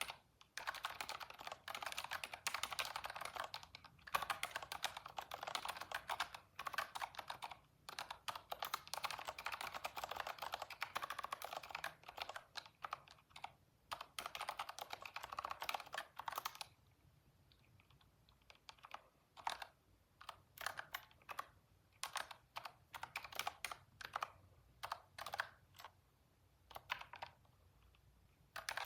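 Typing on a computer keyboard: fast, continuous keystrokes for a little over half the time, then only short runs of a few keys with pauses between them.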